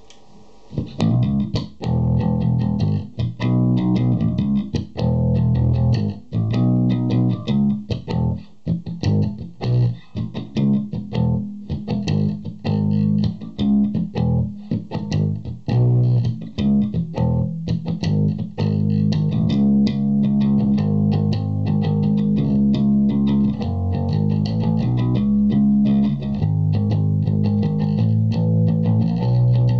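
Japanese '62 reissue Fender Jazz Bass played fingerstyle through an Orange Terror Bass 1000-watt hybrid amp head and speaker cabinet, playing a busy riff of quick plucked notes. It starts about a second in.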